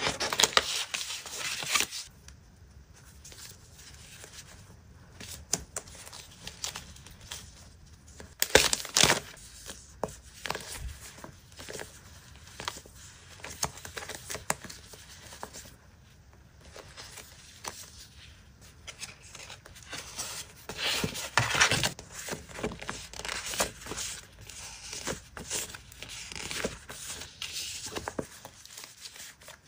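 Die-cut stickers and decorative paper sheets handled and shuffled by hand, giving irregular crinkling, rustling and light paper clicks. Louder bursts of crinkling come at the very start, about nine seconds in, and again about twenty-one seconds in.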